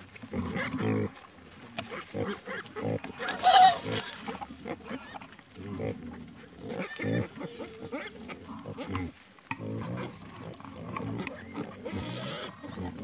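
A sounder of wild boar grunting repeatedly as they forage, with one loud high squeal about three and a half seconds in, part of a squabble among the feeding pigs.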